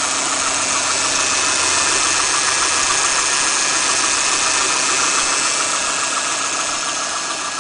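Mitsubishi Lancer 9's hydraulic power steering humming over the idling engine: a steady hum with a fast flutter in it. The hum is a fault sign that the owner puts down to the power steering pump or steering rack.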